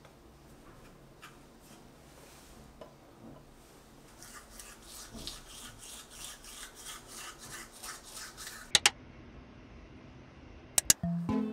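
Bamboo toothbrush scrubbing teeth in quick, even strokes, about four a second, starting about four seconds in and stopping abruptly. A few sharp clicks follow, and plucked-string music begins right at the end.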